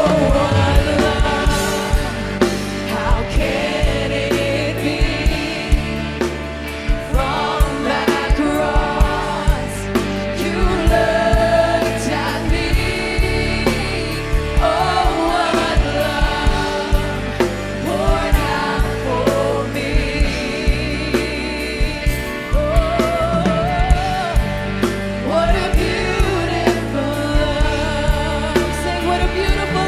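Live worship band performing a sung chorus: a female lead voice with backing singers over drum kit, electric guitars and keyboards, with a steady drum beat.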